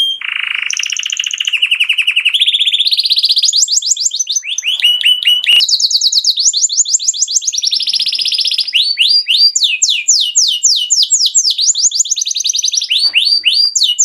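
Domestic canary singing a continuous song of fast trills, each a quick run of repeated short gliding notes, switching to a new trill every second or two. Near the start it gives a lower, buzzing roll.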